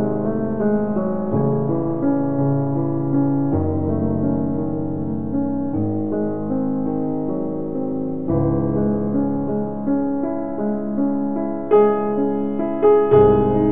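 Background piano music, slow sustained chords changing every second or two.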